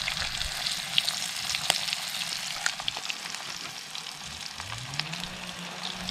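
Battered bluegill fillets frying in a pan of hot oil: a steady sizzle with frequent sharp spits and pops. A low hum rises and then holds steady near the end.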